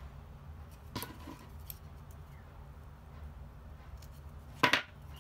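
Spring-loaded pattern notcher snapping shut once with a sharp click near the end as it punches a tiny hole in a folded pattern piece; a fainter click about a second in as the tool is handled.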